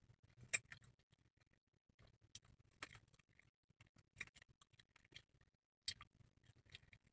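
Faint, scattered clicks and smacks of someone eating chicken wings, with light handling of a plastic deli container.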